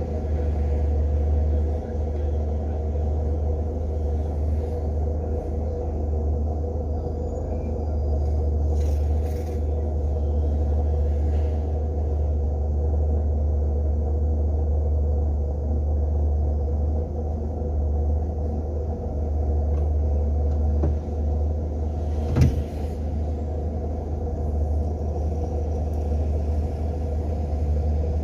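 Steady low rumble of a car on the move, engine and road noise, with one short sharp thump about two-thirds of the way through.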